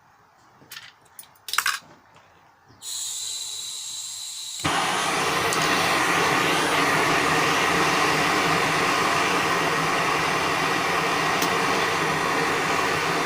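MAPP gas torch being lit: a couple of light clicks, then gas hissing from the nozzle, and about four and a half seconds in the flame catches and burns with a loud, steady rush.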